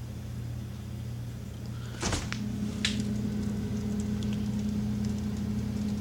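Refrigerator door opened with a click about two seconds in, after which the fridge's steady hum comes through louder, with a few small knocks of things being moved inside.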